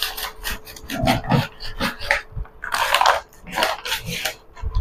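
Brown paper mailer bag crinkling and rustling in irregular bursts as it is pulled and torn open by hand.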